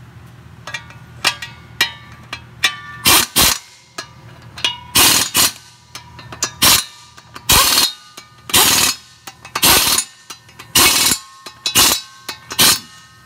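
Wrench tightening the flexplate bolts on a Chevy 6.0L V8: about a dozen short, loud bursts of metallic rattling, each under half a second, with faint metal ringing between them.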